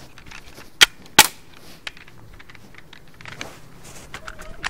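Two sharp airsoft gun shots, cracking about half a second apart, then faint rustling of clothing against the phone.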